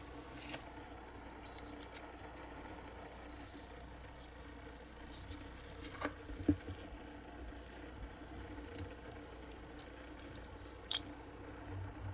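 Small hand tools and parts being handled at a workbench: a scatter of light clicks, taps and brief scrapes over a faint steady hum. The sharpest tap comes about six and a half seconds in.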